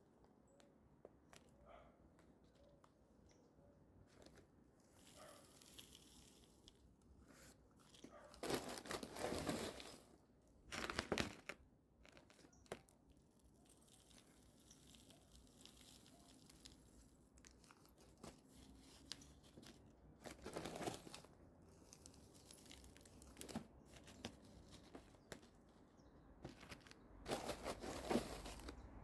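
Hands repotting succulents: quiet, intermittent rustling and crinkling of potting soil and plant pots being handled, with a few louder short scrapes and crunches.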